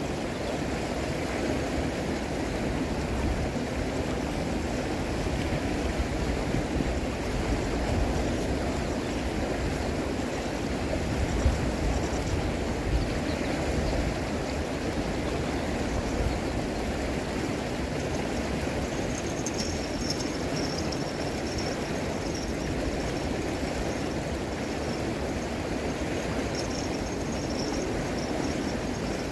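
Steady rush of flowing water, an even noise without breaks. Faint high-pitched chirping comes in twice, about two-thirds of the way through and near the end.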